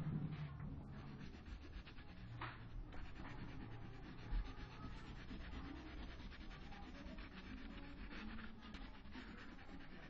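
A crayon rubbing quickly back and forth on drawing paper while colouring in a large area: a soft, steady, scratchy sound, with a sharper stroke about two and a half seconds in.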